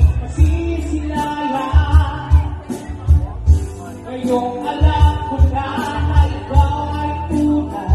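Karaoke-style singing over a backing track with a heavy bass beat, played loud through a PA loudspeaker.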